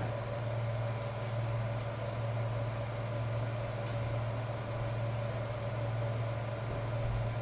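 Steady hum of a Tevo Tarantula 3D printer's cooling fans running while it sits still and the hot end heats, with an even low drone and a fainter higher whine above it.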